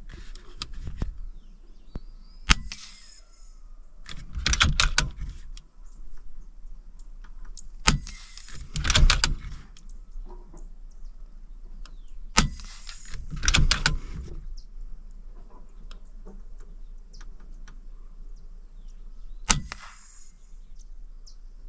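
Four sharp cracks spaced several seconds apart, with bursts of rustling and brushing noise in between.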